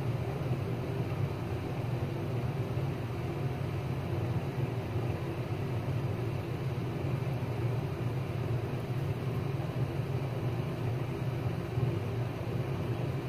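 Steady low mechanical hum that does not change, with no other sound rising above it.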